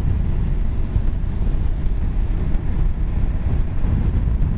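Riding noise from a moving Honda NC750S motorcycle: a steady low rumble of wind on the microphone with engine and road noise underneath.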